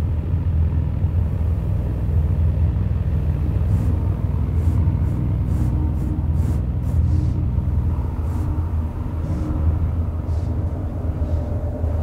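Gas flames firing inside large steel pipes of a pyrophone (fire organ), making a loud, deep, steady rumbling drone with a few held tones above it. A higher held tone comes in near the end.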